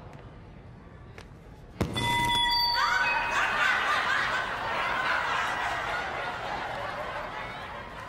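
A sharp knock about two seconds in, then a steady high-pitched tone for about a second. An audience then laughs and murmurs, slowly fading.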